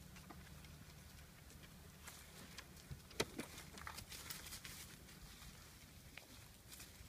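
A cairn terrier's paws pattering and rustling over dry fallen leaves, after a single sharp knock about three seconds in.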